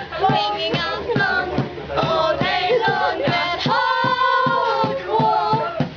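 Several high, sped-up comic voices singing a repetitive chant in layered parts, with a steady clicking beat underneath and one note held for about a second near the middle.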